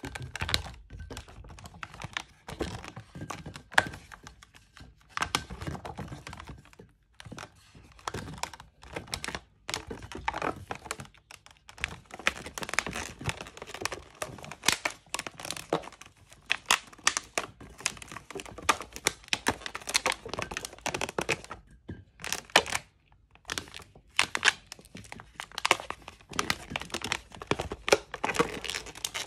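Inflated latex modelling balloons being twisted and squeezed by hand: irregular rubbery rubbing and crackling in quick bunches, with short pauses between.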